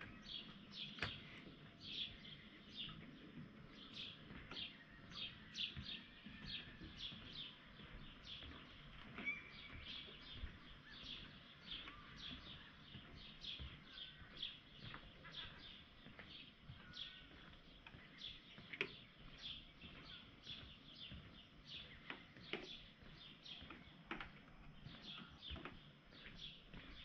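Small birds chirping over and over, short falling calls about two a second, over a faint background hum. A couple of sharp clicks come through about a second in and again near the middle.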